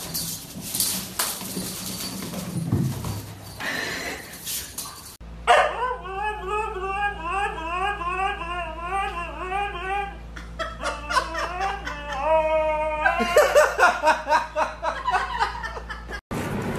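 A white husky-type dog howling in a long, wavering, yodel-like call whose pitch wobbles up and down, breaking into shorter stepped calls and yips. It starts about five seconds in, after a stretch of mixed noise, and cuts off just before the end.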